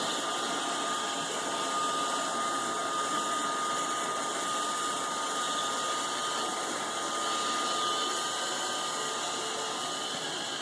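iRobot Roomba 530 robot vacuum running: a steady whirr of its vacuum motor and brushes, with a thin, steady high whine over it.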